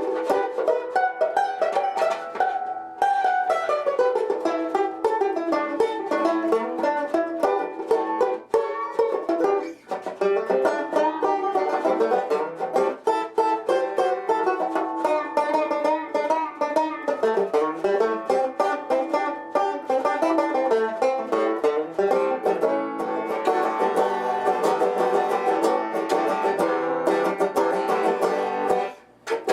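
Fender Rustler six-string banjo (a banjo body with a guitar neck and tuning) played with a steady run of plucked notes, pausing briefly near the end.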